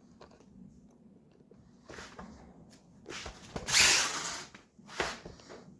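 Scattered handling noises: a few knocks, then rustling and scraping, loudest about four seconds in.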